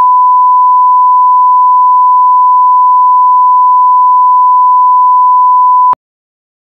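A single steady 1 kHz test tone, the line-up reference played over colour bars. It is loud and unchanging, and cuts off abruptly just before six seconds in.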